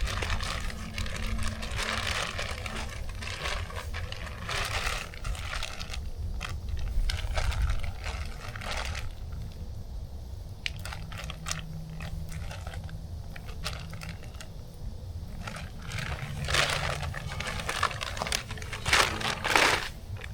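Irregular crinkling, rustling and scraping of things being handled, over a low steady rumble.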